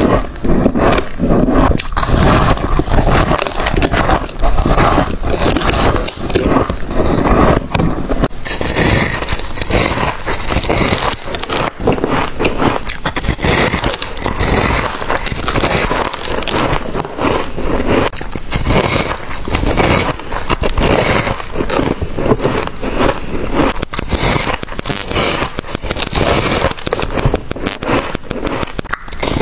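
Freezer frost crunching as it is bitten off and chewed, a dense, irregular run of crisp crunches. About eight seconds in the crunching turns brighter and hissier.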